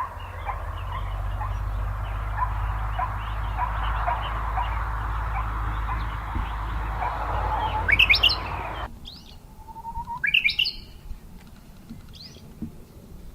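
Birds chirping and singing: for most of the first nine seconds many small birds call together over a low rumble, with a loud song phrase near the end of that stretch. After an abrupt change, a couple of single loud song phrases stand out against a quieter background.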